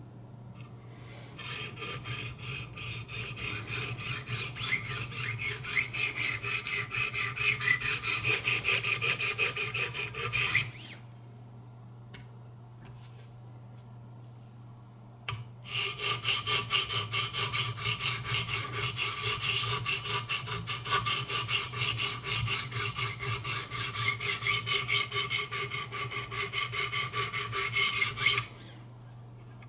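Coarse 200-grit diamond stones of a Wicked Edge guided sharpener rasping along a knife's edge in rapid, even strokes, in two long spells with a pause of about five seconds between them.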